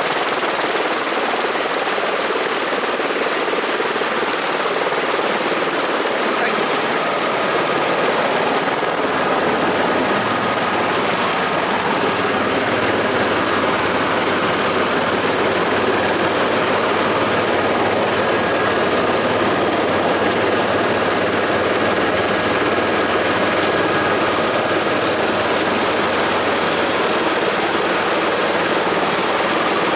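Helicopter turbine engine and rotor running steadily and loud, a dense rushing noise with a thin high whine held on top.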